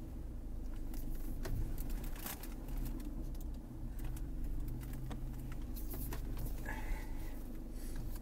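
Mercedes C220d Cabriolet's four-cylinder diesel running low and steady as the car reverses slowly, heard from inside the cabin, with scattered light clicks and a brief electronic beep about seven seconds in.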